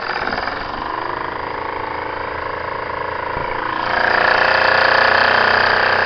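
Small steam engine driving a coffee grinder, starting up and then running steadily with a fast, even beat. About four seconds in it gets louder and a high singing tone comes in.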